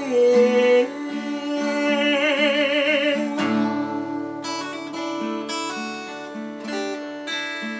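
Cort acoustic guitar strummed while a man sings a long held note with wide vibrato. A little over three seconds in the voice stops and the guitar plays on alone with regular strums, closing the song.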